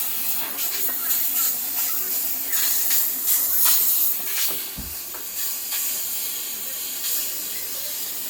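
Steam mop jetting steam, a loud high hiss that surges and eases in uneven spurts, with one brief low thump about five seconds in.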